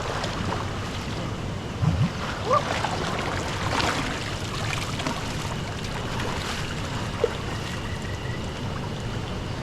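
Steady rush of moving water and splashing, with wind noise on the microphone.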